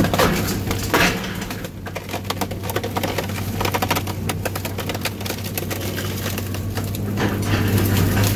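Heavy-equipment diesel engine running steadily with a low hum, while an excavator grapple crushes and snaps a tree trunk and branches, giving a dense run of sharp cracks and clicks through the middle.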